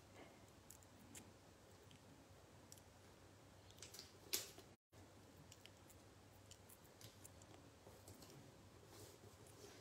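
Near silence, with faint clicks and rustles of cardstock and paper strips being slid and pressed down by hand; one slightly louder click about four seconds in.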